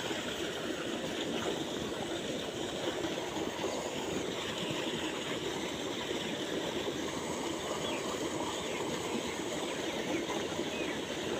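Steady rush of water gushing from an irrigation pipe outlet into a pond.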